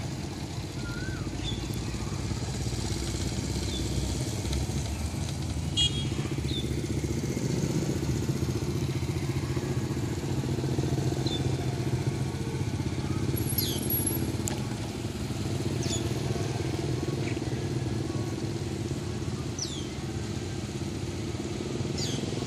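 Motorcycle engines running at low speed, a steady low hum that swells a little and eases off, with a few short high chirps above it.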